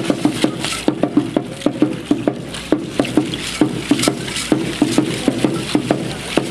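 Drum for Aztec dancers beating a quick, steady rhythm of sharp hits, with a shaking rattle over it.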